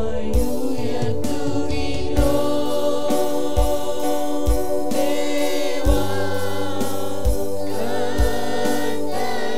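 Church worship team of men and women singing together into microphones over music with held tones and a deep beat that lands about once a second.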